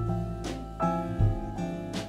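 Background music: an instrumental tune of plucked notes over a bass line, with occasional sharp beats.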